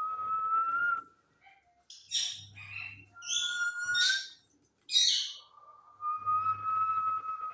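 Pet parrot whistling: a long held whistle note, then a run of short chirps and harsher calls, then another long, steady whistle near the end.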